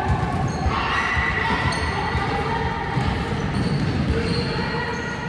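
Basketballs bouncing again and again on the wooden floor of a large sports hall, mixed with players' voices.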